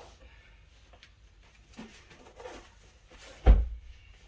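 Faint handling noises from boxed floor lamps being moved, then one heavy thump about three and a half seconds in.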